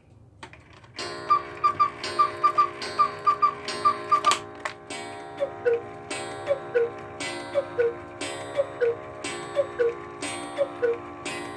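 Antique Black Forest quail-and-cuckoo clock striking the hour: the quail gives a quick run of short, high whistled notes for about three seconds, then the cuckoo begins its falling two-note call about once a second, each call with a strike that rings on.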